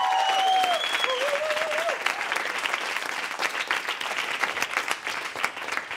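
Audience applauding, with a few whoops of cheering in the first two seconds.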